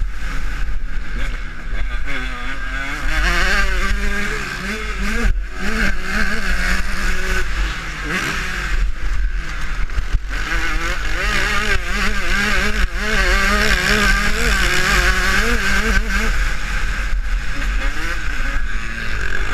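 Husqvarna TC125 two-stroke motocross engine revving hard under riding load, its pitch rising and falling as the throttle opens and closes, with brief drops where it backs off, heard from a camera mounted on the bike.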